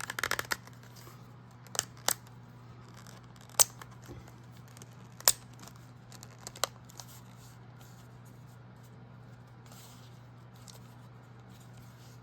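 Handling noise: a quick cluster of sharp clicks and taps, then a handful of single sharp clicks spaced a second or two apart, over a steady low hum.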